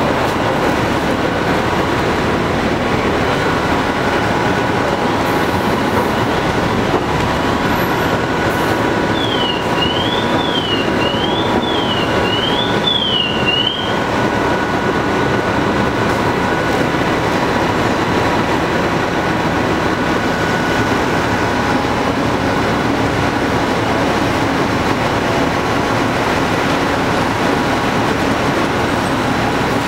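Steady, loud street noise with no break. From about nine seconds in, a siren wails up and down about once a second, five times, then stops about five seconds later.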